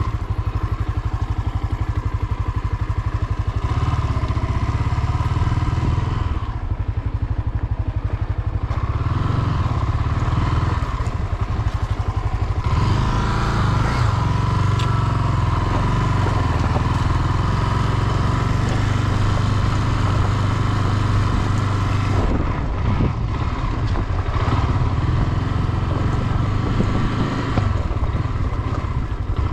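Honda CB 250F Twister motorcycle's single-cylinder engine running steadily while riding. The higher noise thins out twice, for a couple of seconds each time, about a quarter of the way in and again about three quarters in.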